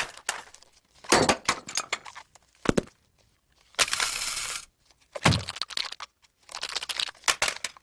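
Cartoon sound effects of small objects dropping one after another onto a hard floor: a string of separate clatters, knocks and clinks, with a brief noisy burst about four seconds in.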